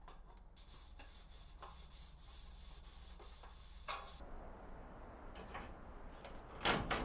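A rag rubbing along a sheet-metal flashing strip, wiping silicone oil over it, with a sharp knock near the end.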